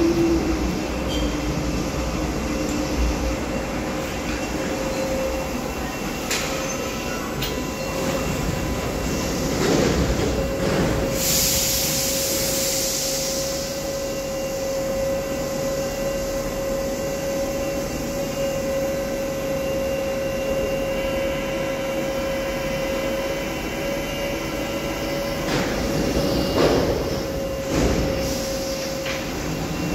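MF77 Paris Métro train standing at the platform, its onboard equipment giving a steady electrical hum. Its motor whine falls away at the start as it comes to a halt. A sharp hiss lasts a couple of seconds about a third of the way in, and several knocks and clatters come through, the loudest near the end.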